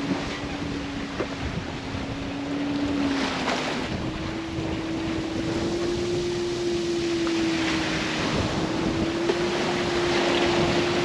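Sailboat's wind generator whining at a steady pitch. The pitch steps up a little about four seconds in. Wind and rushing sea water hiss underneath.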